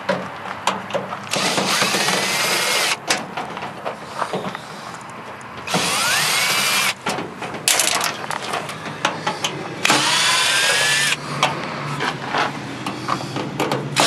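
Cordless drill-driver backing screws out of a microwave oven's sheet-metal casing. It runs in three spells of about a second and a half, each starting with a whine that rises as the motor spins up. Clicks and rattles of handling come between the spells.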